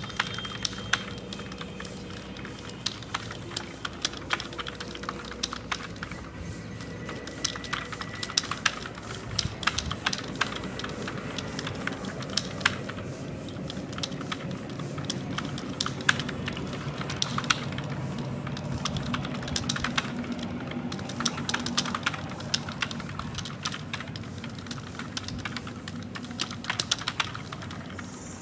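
Fast typing on a computer keyboard: a rapid, irregular stream of keystroke clicks that runs on without a break.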